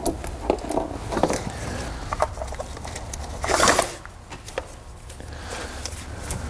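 Seatbelt webbing being fed around an engine by gloved hands: scattered rustles and light knocks, with one louder rustling slide about three and a half seconds in, over a steady low hum.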